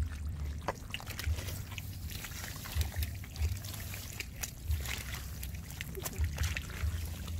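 Wet mud and shallow water squelching and sloshing in short, irregular sounds as hands and feet work through a muddy pond bed.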